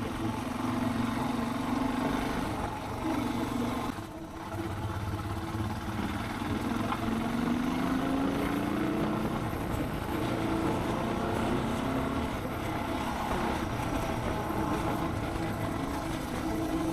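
Suzuki DR650's single-cylinder engine running on the move. It eases off briefly about four seconds in, then rises in pitch over the next few seconds as the bike picks up speed.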